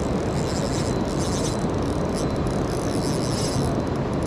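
Steady rushing noise of a river's current flowing around a wading angler.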